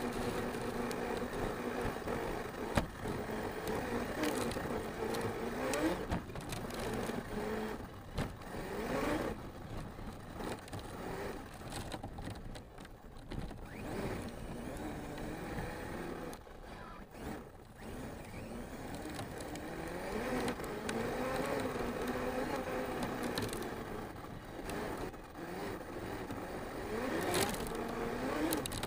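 Arrma Mojave 6S RC truck's brushless electric motor and drivetrain whining, pitch rising and falling with the throttle, over the noise of the tyres on the ground. The whine drops away in the middle and picks up again later.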